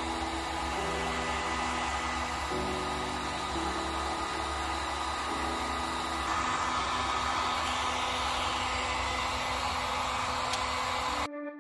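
Electric heat gun blowing a steady stream of hot air, softening old paint for scraping; it cuts off suddenly near the end.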